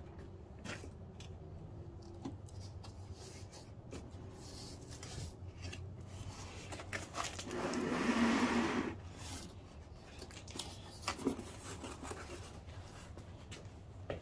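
Cardboard box being opened by hand: flaps rubbing and scraping, with scattered small clicks and one longer, louder scrape about eight seconds in. Printed paper leaflets are handled near the end.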